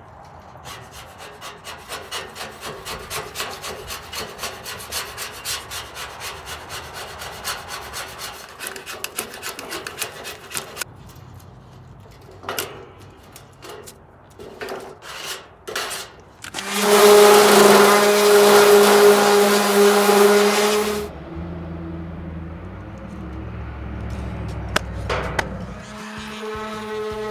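Rhythmic hand-rubbing strokes on the rusty steel rail of a cart, about three a second for some ten seconds, then a few light clicks. An electric random-orbit sander with a 100-grit disc then runs on the steel for about four seconds, a steady hum under a loud hiss, and stops.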